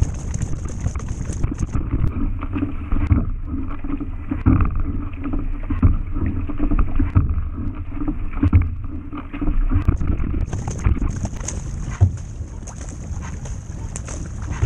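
Kayak paddle blades dipping and splashing in sea water stroke after stroke, with wind buffeting the microphone.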